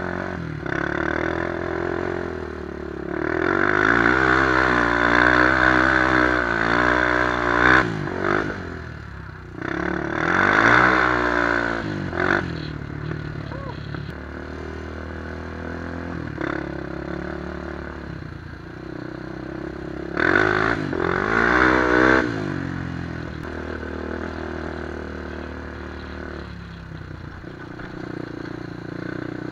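2003 Honda 400EX quad's single-cylinder four-stroke engine, fitted with a White Bros aftermarket exhaust, running under way on a dirt trail. The revs rise and fall in several throttle surges, the longest a few seconds in, with a lower steady drone between them.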